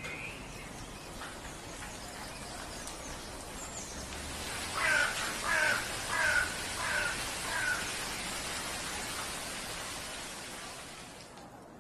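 A bird calling five times in a row, about two-thirds of a second apart, over a steady outdoor hiss.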